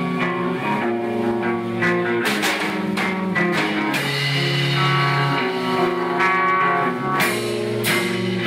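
Live rock band playing: electric guitars sustaining held notes and chords, with the drum kit's cymbal and drum hits coming in about two seconds in and again near the end.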